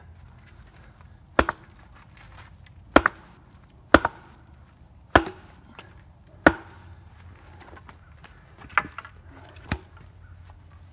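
Sharp blows on wood, seven strikes at uneven spacing with a second or more between most of them, a couple landing as quick double hits.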